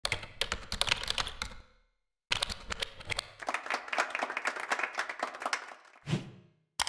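Logo-animation sound effects: two runs of rapid, dense clicking and clatter, the first under two seconds long and, after a short silent gap, a second of about three and a half seconds, followed by a single soft low thump near the end.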